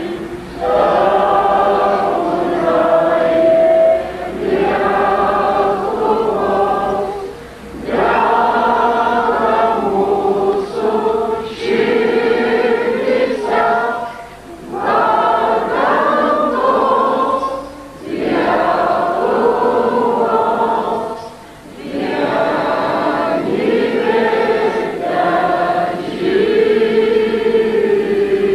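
A large crowd of men and women singing together, in phrases a few seconds long with short breaks between them.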